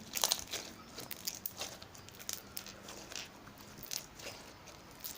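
Jelly cube slime, clear glue slime packed with small melamine sponge cubes, being stretched and squeezed by hand, giving irregular crunching and crackling pops. The maker puts the crunch down to the slime's air bubbles and the sponge cubes.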